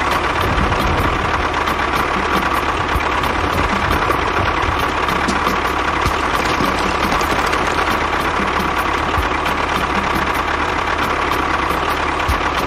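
A small motor running steadily at constant speed, with a quick regular ticking.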